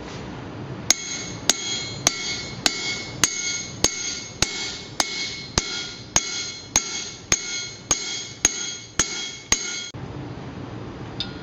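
Hammer peening a steel rivet that joins the overlapped ends of a barrel hoop, on a steel block: about sixteen steady blows, a little under two a second, each with a metallic ring. The blows stop about a second and a half before the end.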